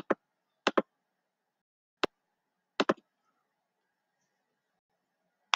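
Computer mouse clicks: three quick pairs and a single click in the first three seconds, then one more click near the end.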